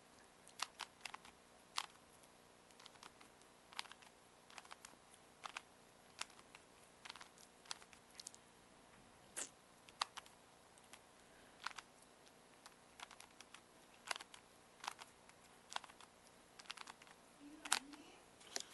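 Rubik's cube being twisted: short plastic clicks and clacks at an uneven pace, about one or two a second.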